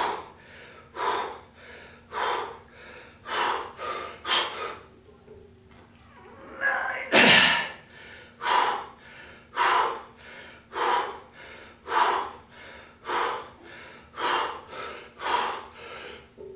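A man's hard, sharp breathing: quick forceful breaths in and out, about one to two a second, while he holds a loaded barbell on his shoulders during a set of squats. One louder, longer breath with some voice in it comes about seven seconds in. This is the panting of heavy exertion.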